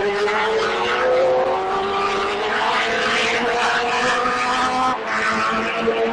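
Formula 3000 car's 3.0-litre V8 engine running at high revs, its pitch rising slowly over the first second and a half and then holding. About five seconds in there is a brief dip in level and a change of note.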